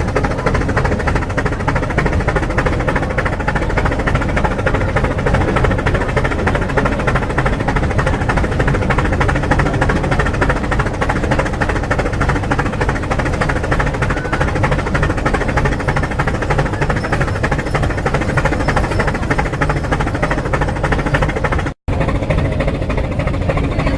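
Steam rack locomotive climbing the mountain railway, running steadily with continuous puffing. The sound cuts out to silence for an instant near the end.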